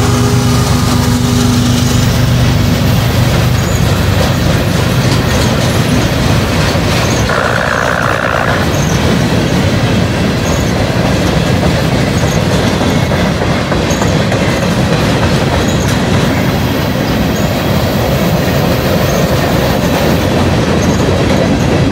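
A CSX GE Evolution-series diesel locomotive passes with its engine running, the engine note fading within the first few seconds. A long freight train's cars then roll by: a steady rumble of steel wheels on rail with a regular clickety-clack, and a brief wheel squeal about seven seconds in.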